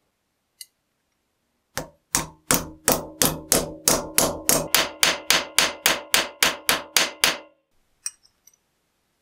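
Hammer blows flattening a thin, bent steel part of a charcoal iron on the flat anvil face of a bench vise: a steady run of about seventeen ringing metal strikes, roughly three a second, starting about two seconds in. A few light clicks of the metal piece being handled come near the end.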